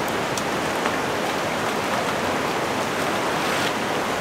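Steady rush of a shallow creek flowing over rocks and riffles, an even wash of water noise with a few faint ticks.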